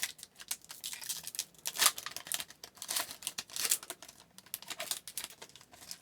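Foil trading-card pack wrapper being torn open and crinkled in the hands: a run of sharp, irregular crackles, loudest about two seconds in.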